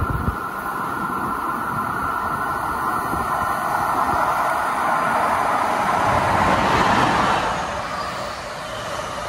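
A train passing on the Northeast Corridor: steady wheel-on-rail running noise that grows louder to a peak about seven seconds in, then fades.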